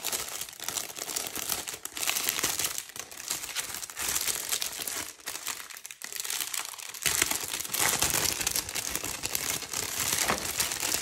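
Clear plastic packaging bags crinkling as they are handled and opened, with a quieter stretch a little past halfway.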